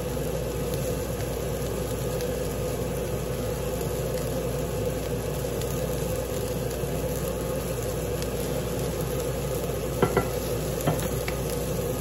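Broccoli, asparagus, green onions and mushrooms sizzling steadily in hot oil in a frying pan, with a couple of light knocks near the end.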